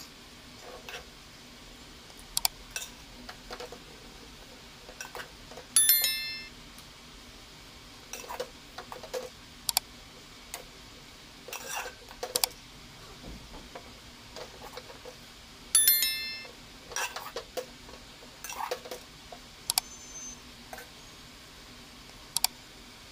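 Metal spoon clinking and scraping against a metal cooking pot as rice is stirred, in scattered short knocks, with two louder ringing clinks about six seconds in and again about sixteen seconds in.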